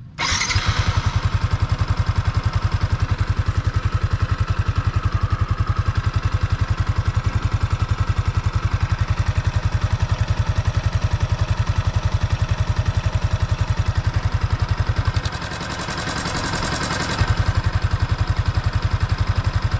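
Yamaha Exciter 155 VVA's single-cylinder engine idling steadily, heard right at the engine case, with a brief change in its sound for about two seconds near the end. The owner finds it less smooth than when new, with a slight hiss, and puts this down to the thin factory break-in oil due for a change at 500 km, not to clutch noise.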